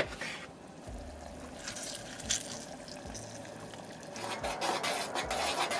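Juice of a fresh orange being squeezed by hand, trickling and dripping into a saucepan of sauce ingredients, with the rub of the fruit's peel; it grows louder about four seconds in.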